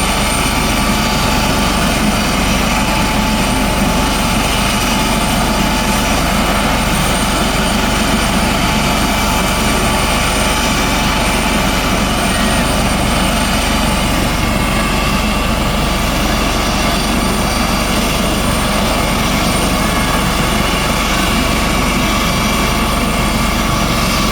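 Coast Guard helicopter running steadily and loudly, its rotor noise carrying several steady high-pitched whines.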